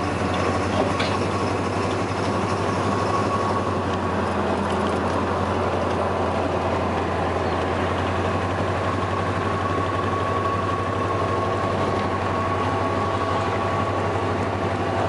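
Steady engine and road drone of a 1972 Oldsmobile Cutlass 442 heard from inside its cabin while driving, with a thin steady whine running through it.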